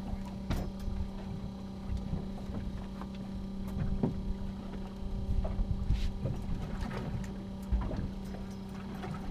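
A boat's engine runs with a steady, even hum under a low rumble. Scattered knocks and clicks from handling on deck punctuate it.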